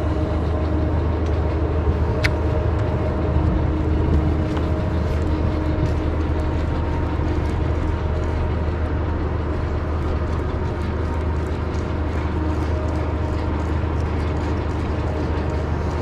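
A steady low mechanical rumble with a faint droning hum, with one sharp tick about two seconds in.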